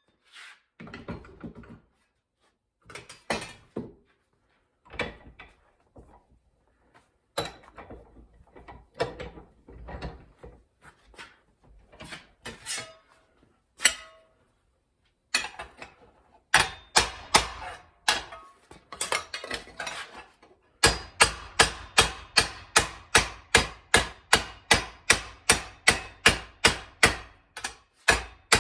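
Sheet steel being hand-formed with metal-shaping hand tools. Sharp metallic clanks and clicks come irregularly at first, then settle into steady strikes about three a second in the second half.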